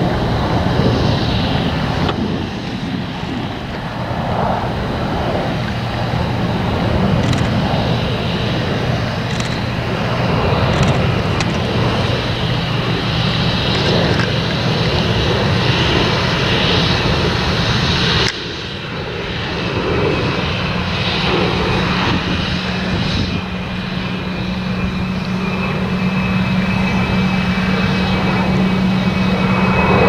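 Claas Lexion 780 combine harvester running while it cuts wheat and unloads grain through its auger into a chaser bin, with a John Deere 6215R tractor running alongside: a steady engine drone. The level drops suddenly about eighteen seconds in, and a thin high whine joins the drone in the second half.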